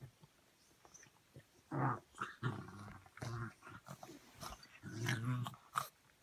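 Dog grunting and grumbling in short low bursts, about two seconds in, again around three seconds and once more near five seconds, while a puppy roots at an adult dog's belly trying to nurse.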